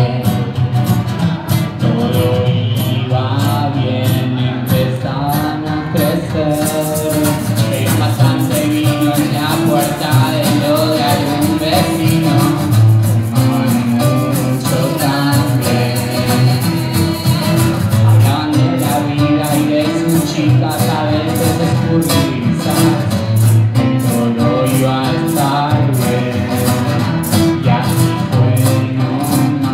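A small acoustic band playing live: strummed acoustic guitars and an upright double bass under a sung vocal. A steady high percussion tick drops out about seven seconds in and comes back about eleven seconds later.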